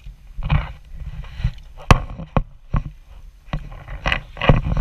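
Water splashing and slapping against a fibreglass boat hull, in irregular rushes, with a few sharp knocks against the hull.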